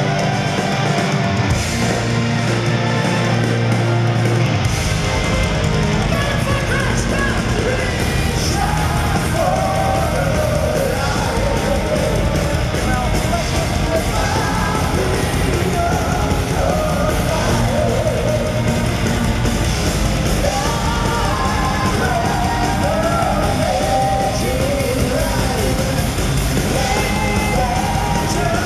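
Live power metal band playing loud, with electric guitars, bass and drums. The full low end comes in about four seconds in, and sung vocals enter about eight seconds in, recorded from among the concert audience.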